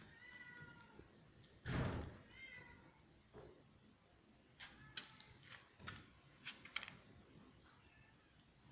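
Cat meowing: two short calls, the second rising, with a loud thump between them. Then several sharp clicks and scuffs.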